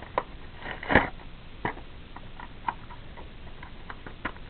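Clear plastic packaging of a Bakugan booster pack being handled and opened by hand: scattered crinkles and clicks, with one louder crackle about a second in.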